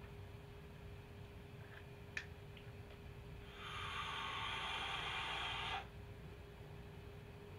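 A long drag on a vape: air drawn through the device with the coil hissing for about two seconds, starting about halfway through and cutting off sharply. A single sharp click comes a couple of seconds before it.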